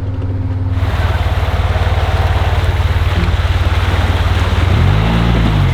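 Four-wheeler (ATV) engine running hard under load while its tyres churn through wet ground, making a dense rushing noise that starts about a second in. Near the end the engine revs up and drops back once, as the machine struggles to get stuck or unstuck.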